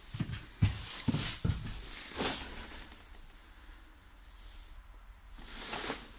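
Footsteps thudding on the floor of an empty city bus, a few heavy steps in the first second and a half, with two short hissing sounds later, about two and six seconds in.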